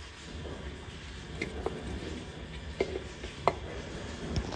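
A handful of short, sharp metallic clicks and taps at irregular moments as a metal hand oil can is worked against the parts of a steam beam engine, over a steady low mechanical rumble.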